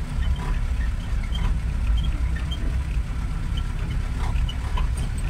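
Chander gari jeep's engine running with a steady low rumble as it goes down a steep hill road, heard from on board, with small high squeaks scattered over it.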